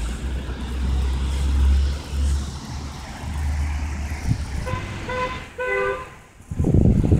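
Street traffic with a heavy low rumble, and a car horn sounding in a few short toots about five seconds in; a loud rushing noise follows near the end.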